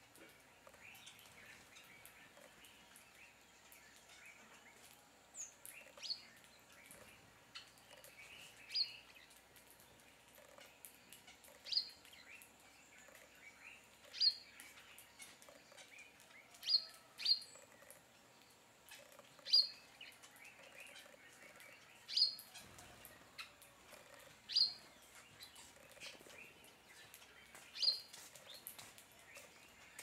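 A flock of village weavers chattering softly while feeding, with a short, sharp, high chip note repeated about every two to three seconds from a few seconds in.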